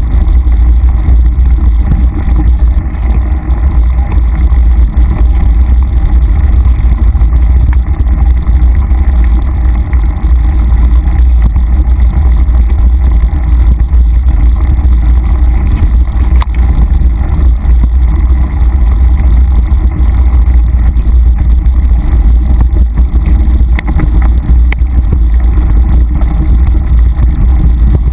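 Mountain bike rolling fast over dirt singletrack, heard through a rider-mounted camera as a loud, steady low rumble of wind and trail vibration, with a few faint knocks from bumps.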